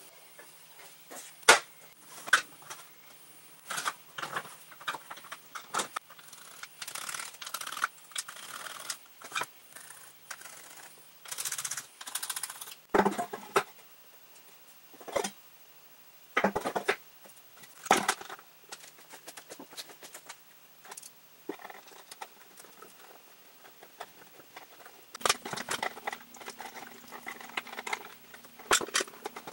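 Hands working with wires and electrical parts on a workbench: scattered clicks, taps, rustles and scrapes as leads and components are handled and fitted into an electronics box, with a few sharper knocks, the loudest about a second and a half in.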